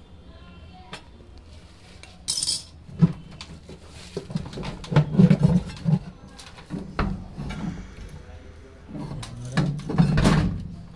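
Irregular metal clinks, knocks and scrapes of a socket tool and loose parts as the gearbox mechanism of a top-load washing machine is unbolted. The sounds are busiest in the middle and again near the end, over a faint steady low hum.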